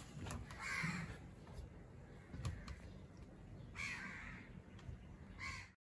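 A bird calling: two harsh calls about three seconds apart, about a second in and near four seconds, and a shorter one near the end, over a faint outdoor background.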